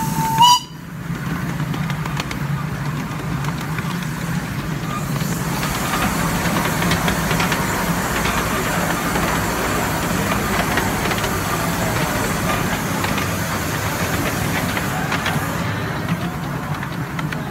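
A miniature steam locomotive's whistle blowing one steady note that cuts off about half a second in, followed by the steady rumble and hiss of the 7¼-inch gauge train running along the track.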